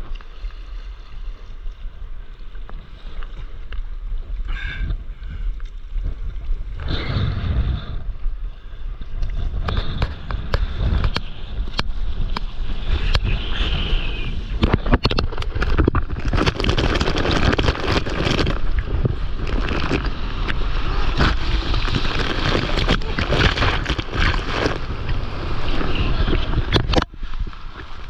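Sea water lapping, then rushing and splashing around a surfboard as it rides a wave, with wind buffeting the microphone close to the water. The splashing builds about a third of the way in and drops away shortly before the end.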